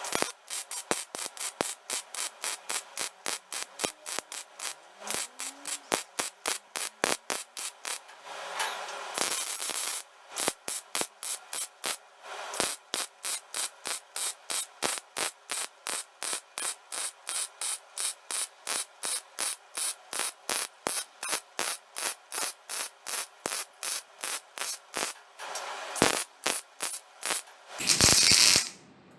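MIG welding arc struck in quick short pulses, about three a second, each a brief crackling burst, as the welder stitches a 'stack of dimes' bead on steel. There are longer continuous runs of arc around 9 seconds in and near the end.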